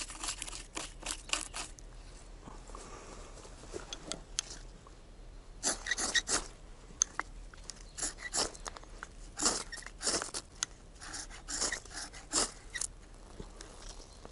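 A knife blade shaving thin curls off a stick of dry wood to make feather sticks, heard as short, sharp scraping strokes. A quick run of strokes comes in the first couple of seconds, then after a pause the strokes resume from about halfway through and keep going in rapid groups.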